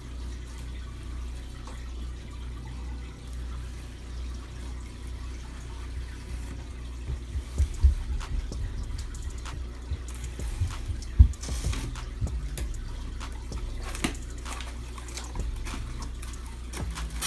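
Cardboard shipping box being opened by hand: tape and flaps worked loose, with irregular knocks and scrapes from about seven seconds in and a longer tearing noise about ten and a half seconds in. Underneath is a steady background of running water and low hum from aquarium and vivarium equipment.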